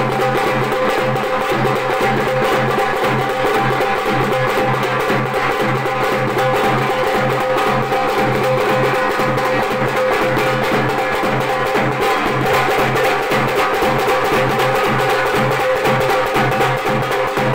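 Rapid, steady drumming on hand-beaten drums, continuous throughout, with a steady drone held underneath.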